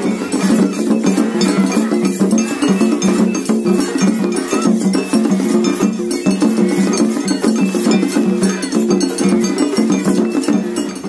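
Japanese festival float music (hayashi): a metal hand gong struck in a fast, steady rhythm over other percussion and a stepping low melody.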